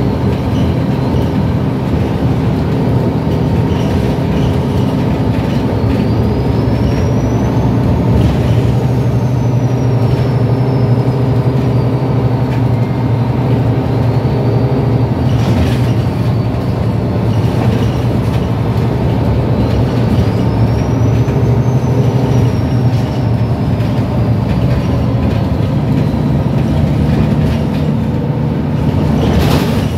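Inside the cabin of an MAN A22 Euro 5 low-floor bus under way: the steady drone of its six-cylinder diesel engine and driveline, with a faint high whine that rises and falls twice. A couple of brief knocks come about halfway through and near the end.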